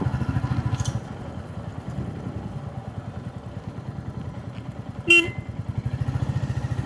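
Motorcycle engine running while ridden, easing off after about a second and picking up again near the end. A vehicle horn gives one short toot about five seconds in.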